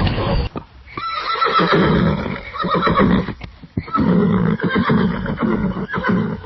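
A horse neighing in two bouts of about two seconds each, with a short break between them. Just before the neighs, an earlier sound cuts off about half a second in.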